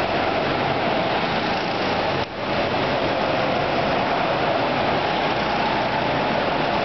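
Hire go-karts running laps on an indoor track: a steady drone of engine and tyre noise, with a brief dip a little over two seconds in.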